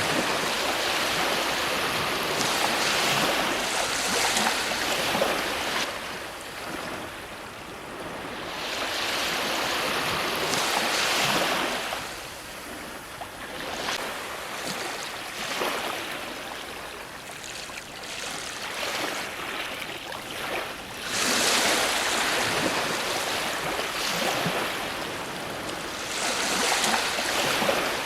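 Ocean waves breaking and washing up on the shore. The rushing noise swells and falls away in surges every few seconds, with a long surge at the start and quieter lulls between the later ones.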